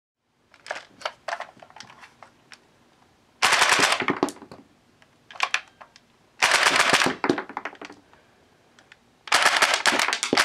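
Tokyo Marui Walther MPL gas blowback airsoft submachine gun firing full-auto bursts, its bolt cycling and ejecting plastic dummy cartridges. A few light handling clicks come first, then four rapid bursts; the last is the longest.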